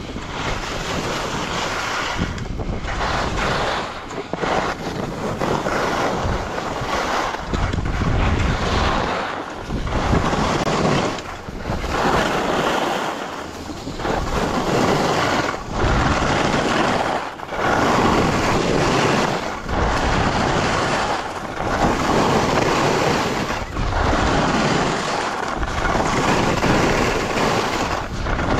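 Skis sliding and hissing over snow with wind rushing on the microphone during a downhill run, the noise swelling and dipping about every two seconds.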